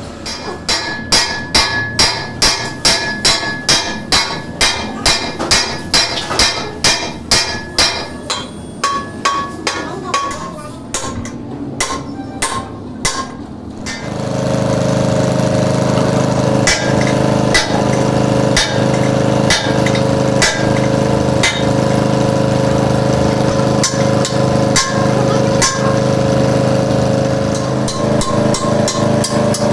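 Rapid hammer blows on metal, about two to three a second, each with a short ringing tone, during axle tube repair work. About halfway through, a steady engine or motor starts running, with occasional knocks still heard over it.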